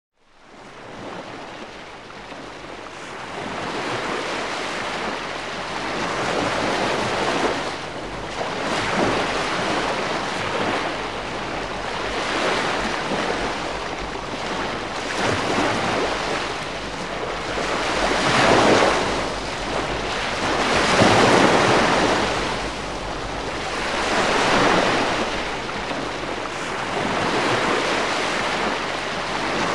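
Calm sea wash: gentle waves washing in and drawing back, swelling and ebbing about every three seconds. It fades in from silence at the start.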